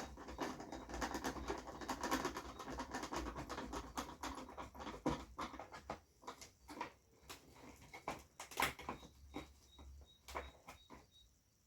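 Handling noise from reassembling an LED TV: a few seconds of dense rustling and crackling, then separate clicks and taps of parts being handled and set in place.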